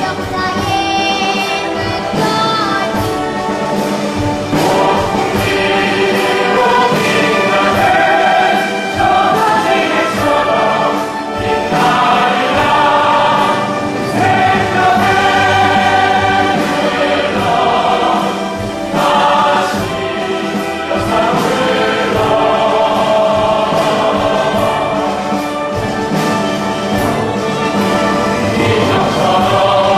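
A choir singing with orchestral accompaniment: a full-voiced choral number that holds steady throughout.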